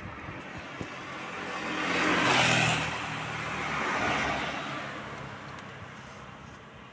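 Road vehicle passing close by, its tyre and engine noise swelling to a peak about two and a half seconds in, swelling again more softly a moment later, then fading away.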